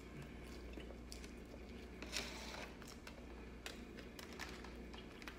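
Faint crunching of someone chewing a mouthful of salad, with a few light clicks and a short louder crunch about two seconds in, over a low steady hum.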